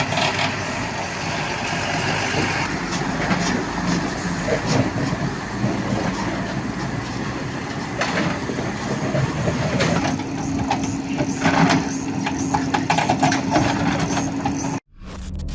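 Heavy vehicle engine running at a road-repair site, with stones and gravel crunching and knocking. A steady hum joins about ten seconds in, and the sound cuts off abruptly near the end.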